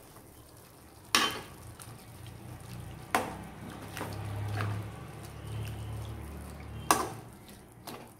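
Stainless steel cookware knocking together: three sharp metallic clinks with a short ring, spread a few seconds apart, as steamed chayote pieces are moved from the steel idli plate into the soup pot. A faint low hum runs underneath.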